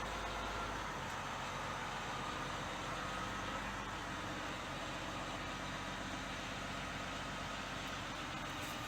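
Engine of a piece of heavy construction equipment running steadily.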